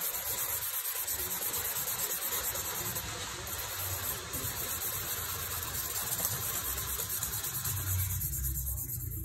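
Charcoal stick scratching across drawing paper in quick back-and-forth shading strokes, a steady rough hiss that rises and falls with each stroke.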